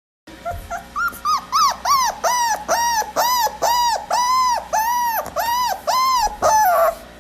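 Hungry puppy whining: a quick run of about a dozen short, high cries, roughly two a second, each rising and falling in pitch, ending on a longer falling whine.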